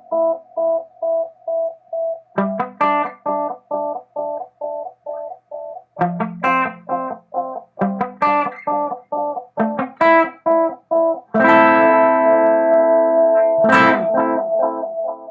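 Electric guitar, a Fender Telecaster, played through a Chuck Pedals Tachyon Delay with its flux knob turned fully counterclockwise, the setting that makes the repeats dirtiest. Picked notes are each echoed by a train of steady repeats about three times a second. About 11 seconds in, a loud strummed chord sets off dense repeats that ring on.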